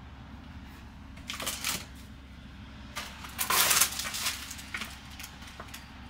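Plastic food packaging crinkling as it is handled, opened and shaken out over a bowl, in two bursts: a short one about a second in and a louder, longer one a few seconds in, then a few light clicks. A steady low hum runs underneath.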